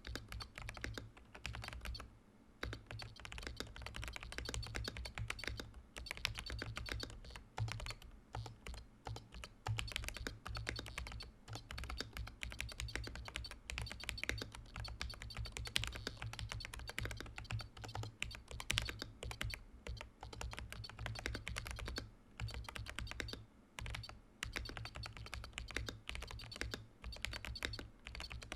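Continuous fast typing on a Command 65 prototype mechanical keyboard with tactile Holy Panda X switches, a POM plate and Domikey keycaps, with a steady stream of keystroke clacks and brief pauses. The keyboard's buzzer is switched on, adding a faint high beep with the keystrokes.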